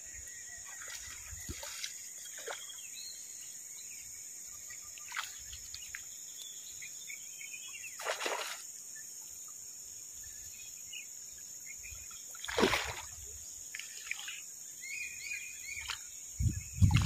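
Outdoor background of a steady high-pitched insect drone with birds chirping. A few short, sudden sounds break it, one near the middle and a louder one about three quarters of the way through.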